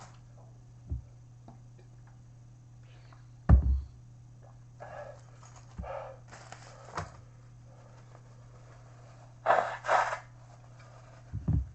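Heavy, sharp breaths in short bursts, with a double breath near the end, between low thumps of handling and a steady low hum: a person huffing through the burn of Nashville hot chicken.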